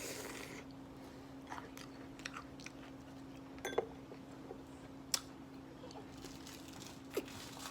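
A person chewing food close to the microphone, with a handful of short sharp clicks scattered through, over a steady low hum.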